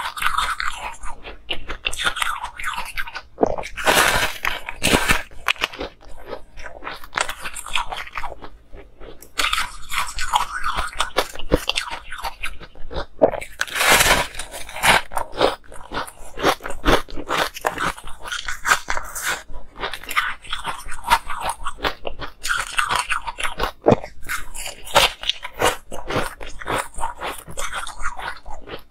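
Close-miked crunching of frozen ice being bitten and chewed: a steady run of crisp cracking and crackling, with the loudest bites about four seconds in and near the middle.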